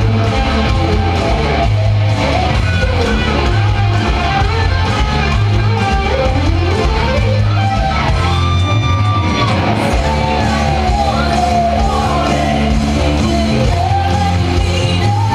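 Loud rock music led by an electric guitar playing gliding, bending lead notes over a pulsing bass line, with some shouted vocals.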